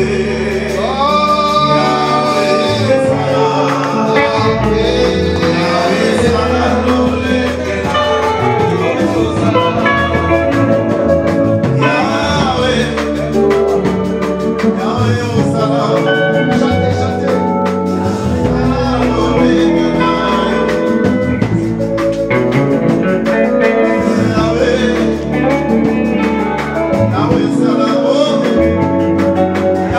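Live church worship song: voices singing over electric guitar and bass.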